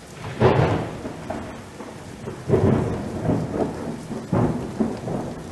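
Thunderstorm: rain falling steadily with three loud rolls of thunder, about half a second, two and a half and four and a half seconds in.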